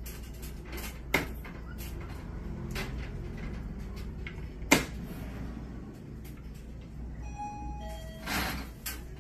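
Caique nibbling at its raised foot and leg band, its beak making a scatter of small clicks with two sharper clicks, the louder one near the middle. Near the end comes a short squeak that steps down from one note to a lower one.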